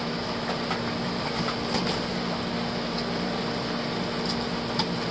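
Steady hiss of rain with a low hum underneath, and a few faint clicks and scrapes as the packing tape on a cardboard box is cut open.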